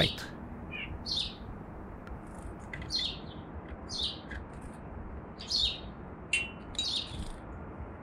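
Small backyard birds chirping at a feeder in short, separate high notes at irregular intervals, picked up by a GoPro's built-in microphone over a steady background hiss.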